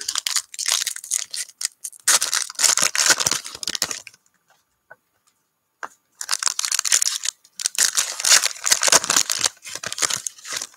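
Shiny foil trading card pack wrappers being torn open and crinkled by hand, in two long spells of crackling with a short lull between them.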